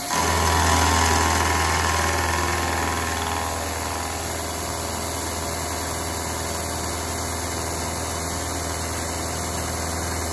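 Indexable carbide-insert end mill on a Bridgeport-type mill entering a 4140 heat-treated steel shaft and taking a 50-thou-deep pass. The sound comes in suddenly and loud as the cutter bites, with higher ringing tones that fade after about four seconds, then settles to a steady low hum of the cut.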